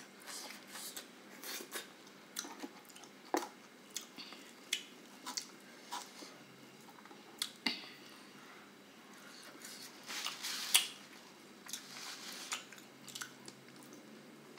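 A person chewing grilled chicken with her mouth close to the microphone: irregular short, wet clicks and smacks, with a louder run of them about ten seconds in.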